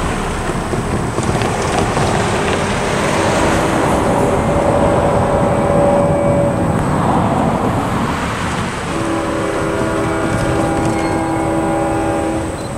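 Road traffic passing: car engine and tyre noise as vehicles drive by. A distant locomotive horn sounds a short held note about four seconds in, then a longer multi-note chord from about nine seconds in as the train approaches.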